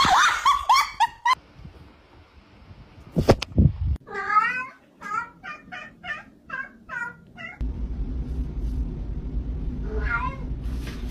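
Cats meowing. A cat yowls in a string of about eight short calls over a toy mouse it has "caught": the loud call a cat makes to announce its prey. Near the end there is a single meow.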